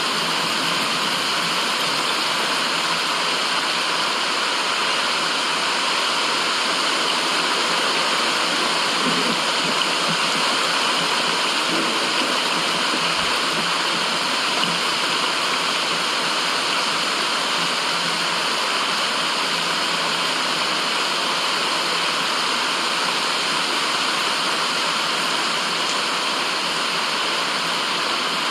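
Steady rushing of running water, an even hiss that holds the same level throughout, used as white noise.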